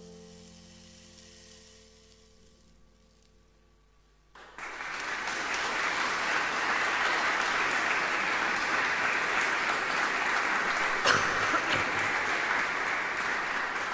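The song's last sustained keyboard notes fade out. After a brief hush, the audience starts clapping about four and a half seconds in, and the applause continues steadily.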